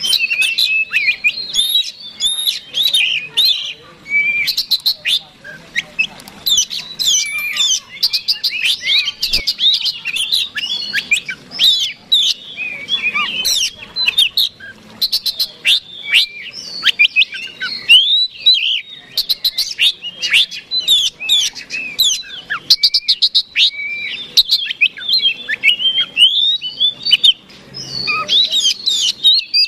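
Male Oriental magpie-robin (kacer) singing a loud, rapid, nearly nonstop song of varied whistles, slurred notes and fast chattering runs. This is the insistent fighting song that is played as a lure to provoke rival magpie-robins.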